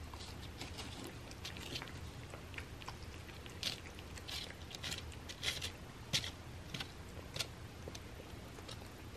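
A cat chewing and biting at a soft cupcake: faint, irregular little crunching and smacking bites, a few louder ones in the middle.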